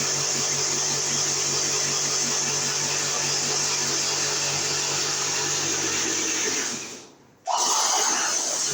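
Electric drill running steadily as it bores a hole for the new switch-loop wire. It winds down near the end and starts up again almost at once.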